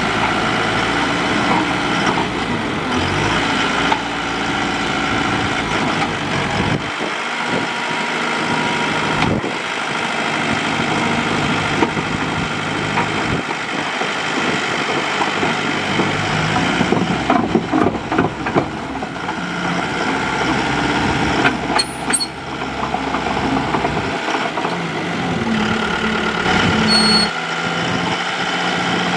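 Excavator's diesel engine running steadily, with a stretch of knocks and clatter a little past the middle.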